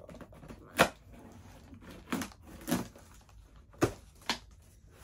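A cardboard box and its packing being handled and opened: a handful of short sharp knocks and crinkles, the loudest just under a second in.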